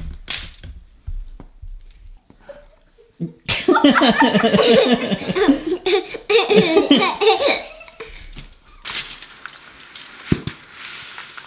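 A young child laughs hard for about four seconds in quick, high giggles. Toward the end comes the scrape and rattle of crumbly granola mixture being pushed with a wooden spoon out of a plastic bowl into a foil-lined tin.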